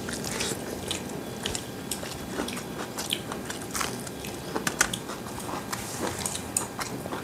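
Close-miked eating sounds of a man chewing a mouthful of rice and mutton curry eaten by hand: a steady run of small wet clicks and lip smacks.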